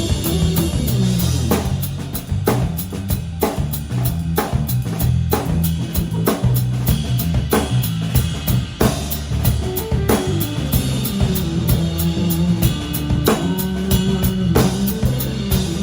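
Live guitar, bass and drum kit playing together: busy drumming with kick, snare and rimshot hits over a moving bass line, with a guitar line that falls in pitch twice.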